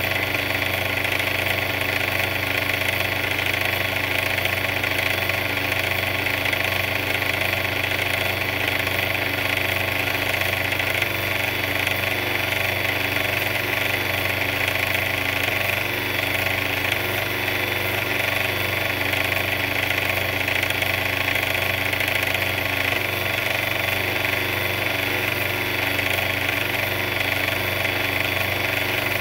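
A big mixer running steadily with an even, unchanging engine-like drone.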